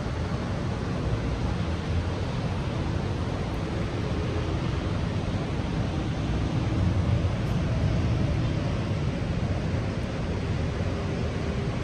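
Heavy rain falling steadily: a constant even hiss with a low rumble underneath.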